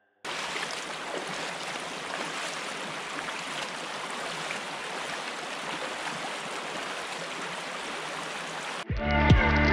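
River water running over a shallow stretch, an even, steady rushing hiss. Music starts abruptly near the end.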